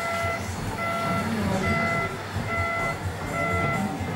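Electronic reversing beeper of a radio-controlled model truck, a short beep a little faster than once a second, over a low rumble.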